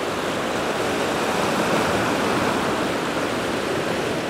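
Ocean surf washing and breaking over the rocks below, a steady rushing that swells a little around the middle.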